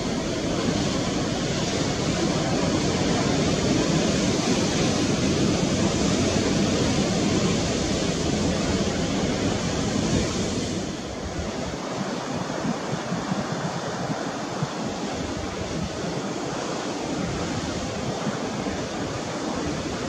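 Steady rushing noise of wind and sea with a low rumble that eases a little about eleven seconds in.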